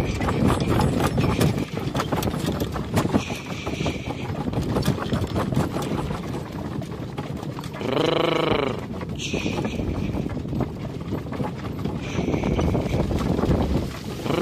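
Hoofbeats of several horses moving briskly over the ground, a dense run of knocks under wind noise on the microphone. A short pitched call, rising then falling, sounds about eight seconds in and again at the end.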